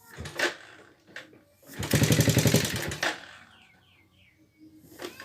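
Yamaha Vega ZR's single-cylinder four-stroke engine being started: it clatters briefly with a rapid, even rattle, then dies away. The owner likens the sound to a sewing machine and calls it wrecked, which he takes for serious internal engine wear.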